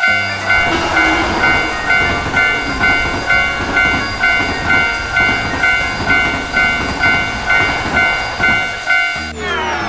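Railroad crossing warning bell ringing steadily about twice a second while a train passes. Both cut off suddenly near the end.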